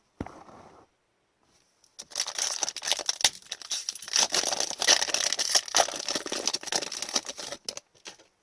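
Foil wrapper of an Upper Deck hockey card pack being torn open and crinkled: a brief tap at the start, then dense crackling and rustling that starts about two seconds in and lasts nearly six seconds.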